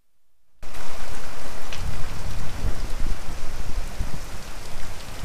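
Torrential downpour of heavy rain pouring onto a dirt yard, a dense steady hiss that cuts in about half a second in, with low rumbling between about two and four seconds in.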